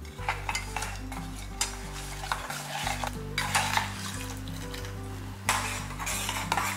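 A spoon stirring jaggery as it dissolves in water in a steel pot on the stove, scraping the pot in repeated strokes.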